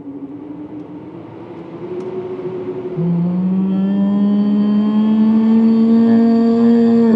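Engine running and slowly rising in pitch and loudness, with a second, louder engine note joining about three seconds in; both drop in pitch and cut off at the very end.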